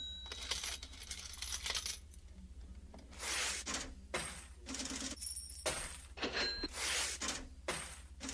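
Money sound effects: coins clinking and spilling with a cash-register ring. They come as short jingling bursts, a cluster at first, then after a quieter moment about one burst a second, over a low steady hum.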